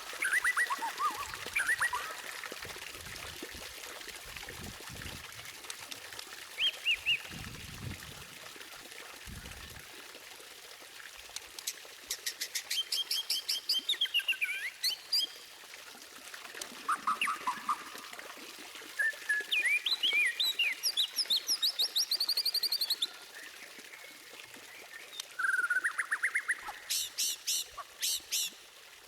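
White-rumped shama singing: a varied run of whistled phrases, some sliding up or down, broken by bursts of fast repeated notes around the middle and near the end, over a steady background hiss.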